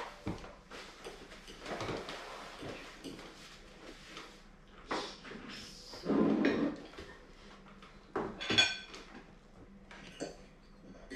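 Tableware at a meal: forks and plates clinking and tapping on a wooden table, with a few louder knocks and one ringing clink about eight seconds in.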